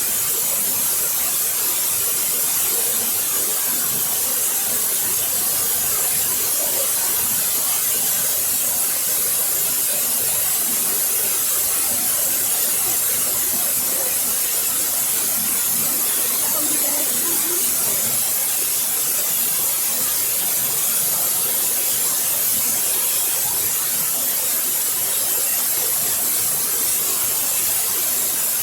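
Waterfall: a steady rush of falling and splashing water, even in level throughout, with a bright hiss in the treble.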